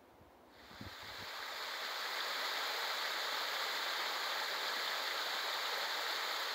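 Small woodland brook cascading down rock ledges: a steady rush of running water that swells in over the first second or two.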